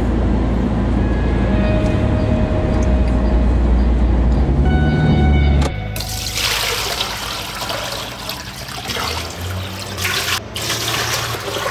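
Low rumble inside a car, cut off abruptly about halfway through, then seawater poured in a steady splashing stream from a plastic bowl into an aluminium stockpot to be boiled down for salt.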